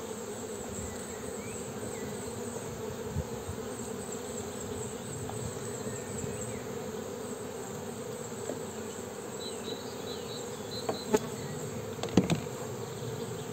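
Honeybee colony buzzing from an open hive, a steady hum. Two sharp knocks stand out near the end.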